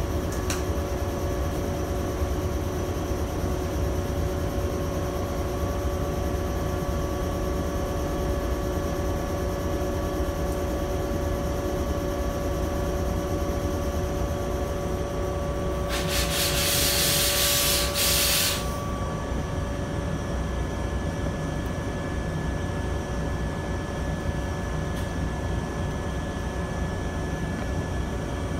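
Cabin of a JR West 123 series electric railcar at a standstill: a steady hum with several fixed tones from the car's onboard equipment. Just past halfway comes a loud hiss of compressed air lasting about two and a half seconds, the pneumatic doors closing, after which the sound is more muffled.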